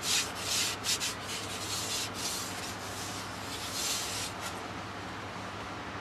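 A cloth pad rubbed in quick back-and-forth strokes over wooden slats, wiping on a first coat of varnish. The strokes stop after about four and a half seconds.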